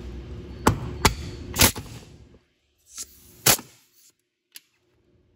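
Sharp metal clicks and clacks as the air dryer's fitting is pushed and worked into a quick-connect air coupler, about six of them, the loudest about a second and a half in.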